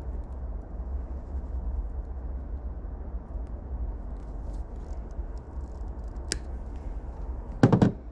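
Wire cutters snipping through a wire of an ATV wiring harness with one sharp click about six seconds in, followed near the end by a louder, brief double knock. A low steady rumble runs underneath.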